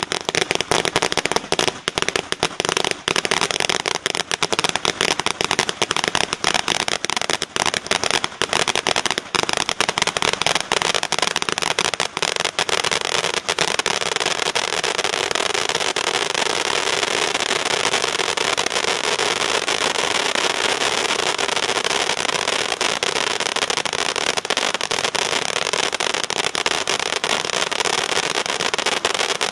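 Maxsem GP-262 Beautiful Fountain, a ground pyrotechnic fountain, spraying sparks with a loud hiss. For roughly the first thirteen seconds it crackles with dense rapid pops, then settles into a steady rushing hiss.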